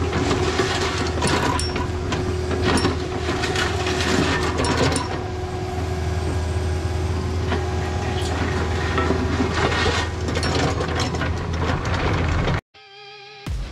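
Takeuchi mini excavator's diesel engine running steadily under load, with clicks and scraping as its bucket works gravelly dirt. The sound cuts off suddenly near the end.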